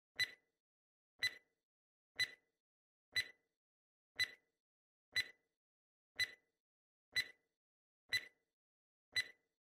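Countdown timer sound effect ticking once a second: ten short, sharp ticks with silence between them.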